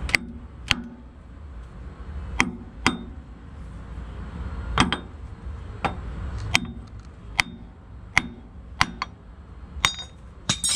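Hammer blows on the steel clutch adapter pressed onto the back of a 5.9 Cummins crankshaft: about a dozen sharp, ringing metal strikes, irregularly spaced, knocking the adapter loose until it comes off the crank near the end.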